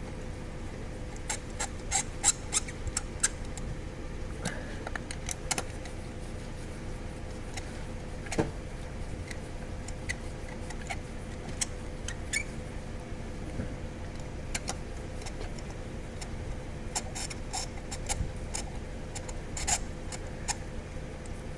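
Scattered light metallic clicks and clinks of hand tools and parts being handled during ignition coil and spark plug work, in irregular clusters, over a steady low hum.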